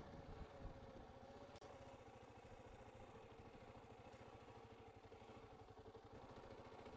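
Motorcycle engine running at low speed as the bike rolls along a dirt track, heard faintly as a steady, fast low pulsing. The sound cuts out for an instant about a second and a half in.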